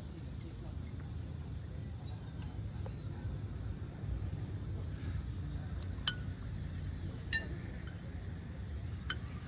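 Outdoor ambience: a steady low rumble, with three short, sharp clinking ticks in the second half.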